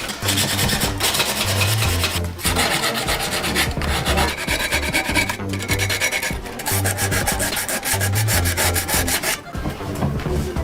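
Rapid back-and-forth strokes of abrasive rubbing on the bike's rusty metal, as in hand-sanding off rust and old paint before repainting. Background music with a low bass line plays underneath.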